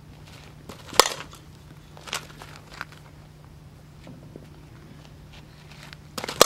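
A few sharp clicks and knocks: a loud one about a second in, two fainter ones after it, and a quick cluster of loud knocks near the end, over a faint steady hum.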